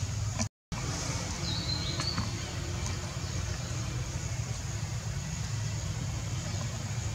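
Outdoor ambience: a steady low rumble with a faint high hiss, broken by a brief dropout about half a second in. About a second and a half in there is one short high chirp that rises and then holds.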